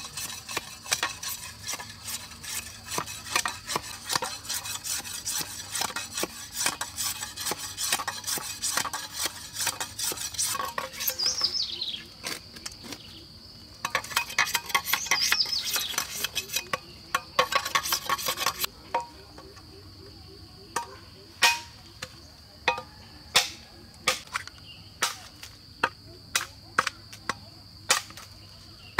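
Steady high-pitched drone of forest insects, crickets among them, under busy rapid clicking and scraping of handwork for most of the first two-thirds. After that the clicking gives way to single sharp knocks about once a second.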